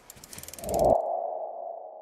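Sound effect of an animated logo reveal: a rapid run of ticks over a rising low rumble, which cut off about a second in, giving way to a ping-like ringing tone that slowly fades.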